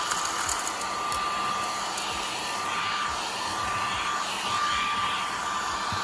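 Battery-powered mini desktop vacuum running steadily, a high whine over an airy hiss, as it sucks up crumbs from a wooden table.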